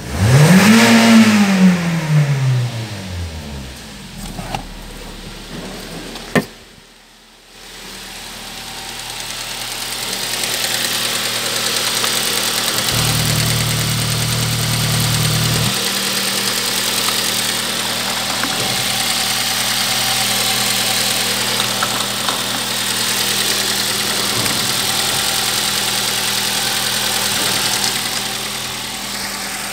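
Ford Focus II Coupe-Cabriolet's 2.0-litre four-cylinder petrol engine revved once at the start, its pitch rising and falling back within about three seconds, then idling steadily after a brief drop-out.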